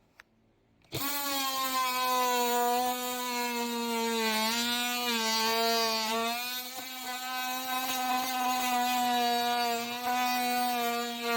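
Oscillating multi-tool starting about a second in and cutting with a freshly re-toothed blade: a steady, high-pitched buzz whose pitch sags briefly a few seconds in as the blade bites.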